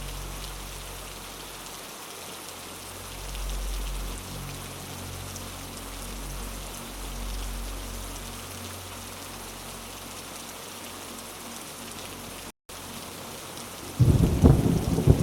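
Steady hiss of heavy rain with a low, steady drone underneath. The sound cuts out for an instant near the end, then a loud rumble of thunder breaks in.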